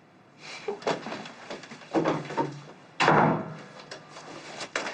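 A door banging: several sudden knocks and bangs, the loudest about two and three seconds in.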